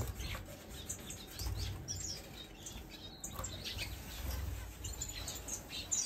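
Small aviary birds chirping faintly: scattered short chirps and tweets, over a low background hum.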